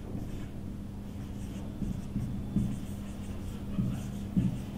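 Marker pen writing on a whiteboard: faint scratching strokes, with a few soft low thuds, over a low steady hum.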